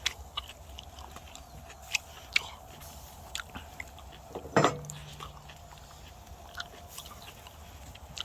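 A person biting and chewing grilled black pork, with many short scattered clicks and one louder knock about four and a half seconds in.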